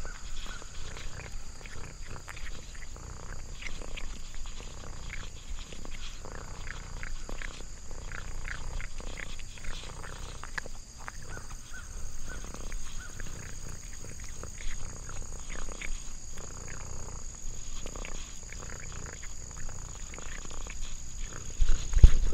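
Orange tabby cat eating a treat from fingers, with many small wet chewing and licking clicks. A steady high insect drone runs behind it, and there is a thump near the end.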